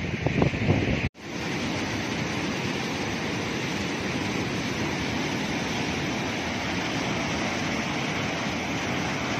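Wind buffeting the microphone for about a second, then cut off suddenly, followed by the steady, even rushing of a fast white-water river tumbling over rocks.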